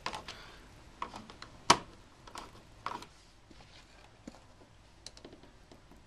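Light clicks and knocks of an electrical outlet being pushed into its wall box and its cover plate fitted, the sharpest knock about two seconds in, then a few faint ticks.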